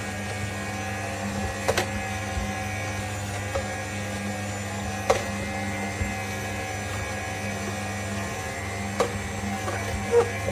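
AMZCHEF cold-press slow juicer running: a steady motor hum, with a few sharp clicks scattered through.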